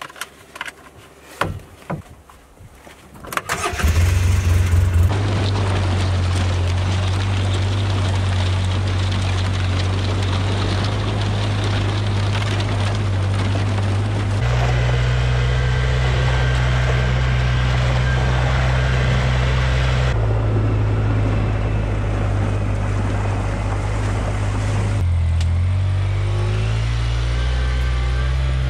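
Polaris Ranger 6x6 side-by-side: a few clicks and knocks, then the engine starts about four seconds in and runs steadily as it drives. Partway through, water splashes as the machine fords a creek, and the engine pitch rises near the end.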